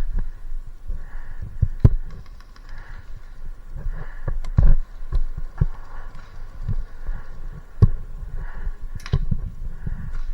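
Irregular low thuds of footsteps and gear knocking against a body-worn camera, with soft rustling and a few sharp snaps.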